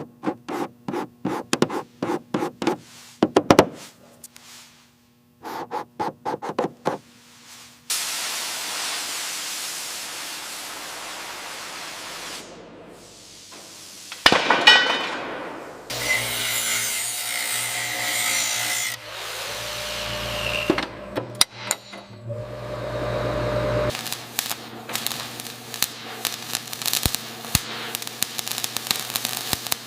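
A run of workshop tool sounds. It opens with bursts of rapid clicking and tapping, then a steady hiss of about four seconds, then scraping and power-tool noise, and it ends in dense crackling clicks.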